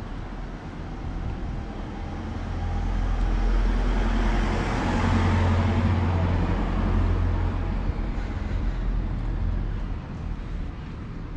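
A motor vehicle passing close by: a low engine and road rumble that swells from about two seconds in, peaks midway, and fades away near the end, over the steady noise of city traffic.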